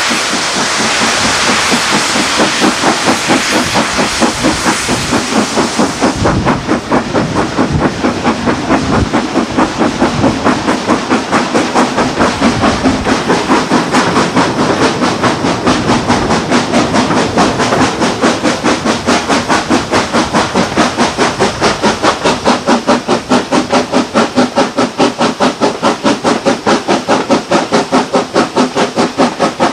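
Steam locomotive working hard under load, its exhaust beating in a steady, rapid chuff, heard from the train behind it. A loud hiss fills the first six seconds or so, then stops and leaves the exhaust beats clear.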